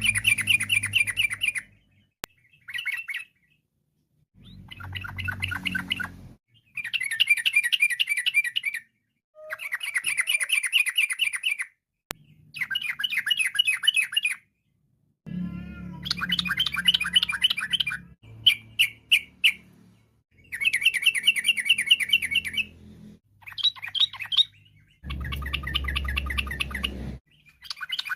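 Yellow-vented bulbul singing in the rapid chattering style bird keepers call "ropel": repeated bursts of fast, bubbling chatter, each a second or two long, with short pauses between them.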